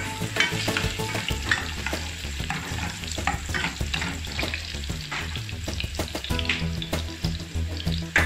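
Sliced ginger sizzling and crackling as it fries in hot oil in a small saucepan, with many small pops, while a plastic spoon stirs it around the pan.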